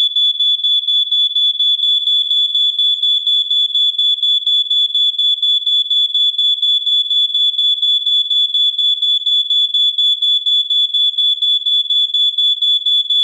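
Smoke detector alarm sounding continuously: a single high-pitched tone that pulses rapidly and evenly.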